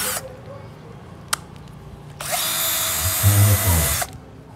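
Hilti 12V cordless drill motor spinning freely under the trigger: a run cuts off just after the start, a single click comes about a second in, and the motor runs again for about two seconds from a little past two seconds in.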